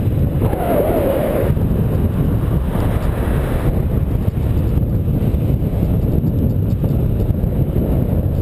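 Wind buffeting the microphone of a bicycle-mounted camera while riding, a steady low rumble, with car traffic going by on the road. A brief wavering tone comes about a second in.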